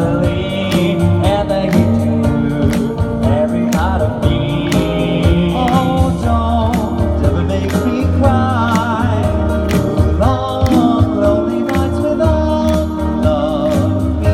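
Male vocal group singing a song in close harmony, with vibrato on held notes, over a steady beat and bass line.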